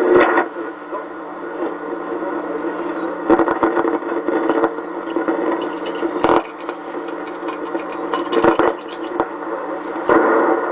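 Westinghouse RA/DA regenerative radio receiver putting out a weak, noisy broadcast signal that swells and fades, broken by a few sharp crackles as the tuning and regeneration knobs are turned. The crackling and fading are the signs of a bad connection in the set, which the owner suspects but has not yet found.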